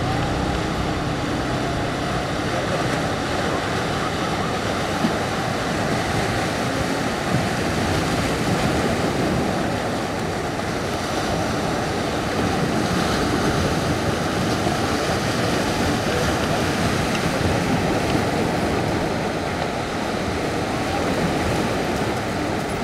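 Ocean surf breaking over a rocky reef and shore: a steady wash of waves.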